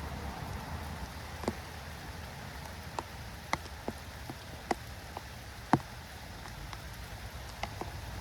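Light rain falling: a steady hiss with irregular sharp ticks of drops striking a hard surface.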